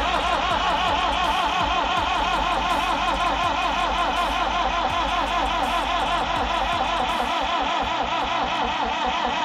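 Electric starter motor cranking the John Deere 717 tractor's diesel engine on and on without it firing, its whine rising and falling several times a second with the compression strokes, then cutting off suddenly at the end. The engine will not keep running on its own, and the cranking is draining the battery flat.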